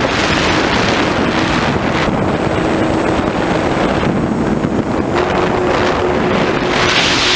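Onboard audio of an FPV model plane in flight: the electric motors and propellers give a steady hum that steps up slightly in pitch about five seconds in, under heavy wind rushing over the microphone in surges.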